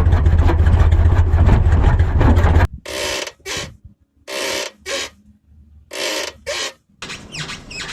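Suspension rubber bushings squeaking as they rub against metal. First comes a loud low rumble with rapid rattling for about two and a half seconds, then short squeaks in three pairs as the car body is worked up and down. The noise is annoying but not dangerous.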